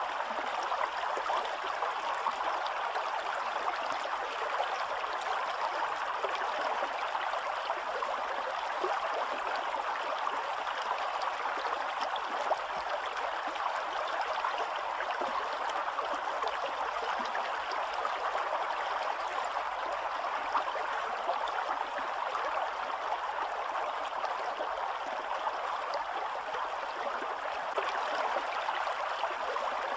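Small spring-fed stream running over rocks and through a stone-lined channel: a steady rush of water.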